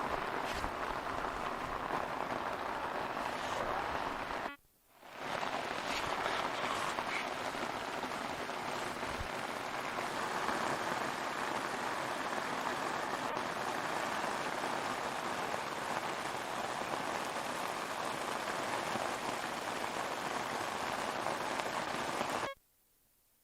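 Torrential rain falling as a steady, dense hiss. It drops out for half a second about five seconds in and cuts off abruptly near the end.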